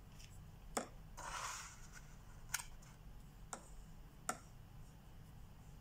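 A paintbrush clicking against the rims of small gouache paint jars four times, with a short rubbing swish of the brush in the paint about a second in.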